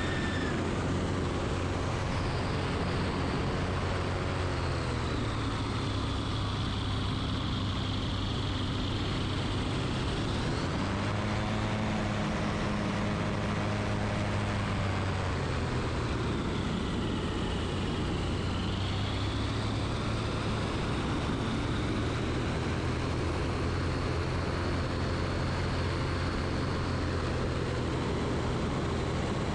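Engine and pusher propeller of an Aeros weight-shift ultralight trike droning steadily in flight, with wind rushing over the microphone. The engine pitch sags and recovers slightly a few times.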